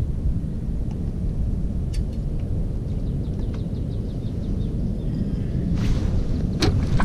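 Outdoor ambience: a steady low rumble, with a small bird chirping in quick runs of short notes. A sharp click comes near the end.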